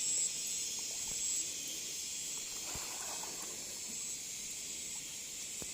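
A steady high-pitched hiss, with faint voices in the background about three seconds in.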